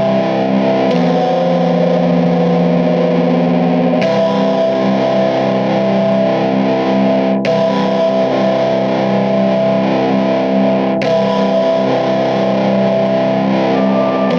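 Background music: distorted electric guitar playing sustained chords that change every three to four seconds.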